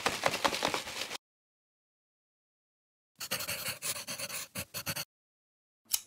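Edited-in title sound effects: a burst of scratchy, crackling noise that stops about a second in, dead silence, then a second scratchy burst of about two seconds, and a short click near the end.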